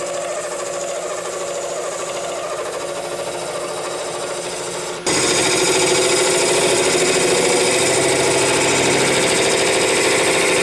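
Turning tool cutting a spinning mallee burl and epoxy resin blank on a wood lathe: a steady scraping hiss of the cut over the running lathe, jumping louder about halfway through as the cut moves to the other end of the blank.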